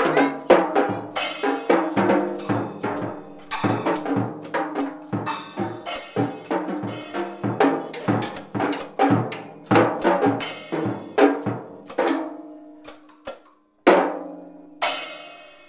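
A drum kit played by children: a quick, uneven run of strikes on the drums, several a second, with the drum tones ringing. It thins out about twelve seconds in, then two last loud strikes are left to ring.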